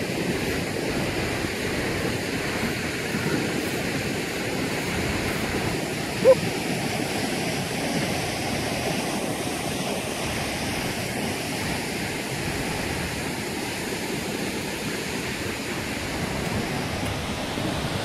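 Hunua Falls waterfall rushing steadily, heard from the approach before it comes into view. About six seconds in there is a single brief pitched note.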